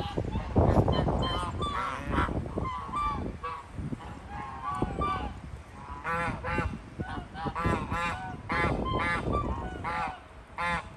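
A flock of domestic geese honking over and over, the calls coming thick and fast in the second half. A low rumble sits under the calls about a second in.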